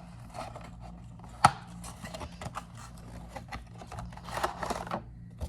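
Hands handling a model airplane's cardboard box and packaging: scattered clicks, taps and rustles, with one sharp snap about a second and a half in and a brief burst of rustling near the end.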